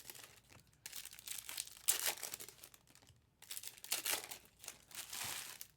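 Trading-card pack wrappers crinkling and tearing open in several short bursts, with brief pauses between them.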